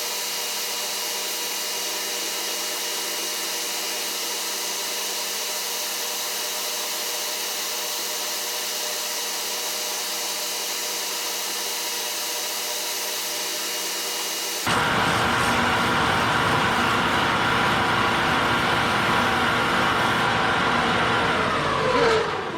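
Shopsmith lathe motor running with a steady whine and hiss. About fifteen seconds in it gets suddenly louder and fuller, and near the end it winds down with a falling pitch as it is switched off.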